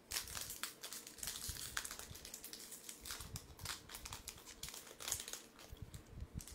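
Foil trading-card booster pack being torn open and handled, its wrapper crinkling in many quick, irregular crackles.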